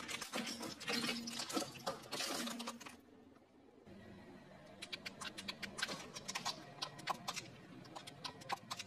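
Car tyre rolling over plastic toys: a burst of crackling and snapping as a row of plastic sunglasses is crushed. After a brief pause comes a long run of separate sharp cracks as a plastic toy rifle breaks under the tyre.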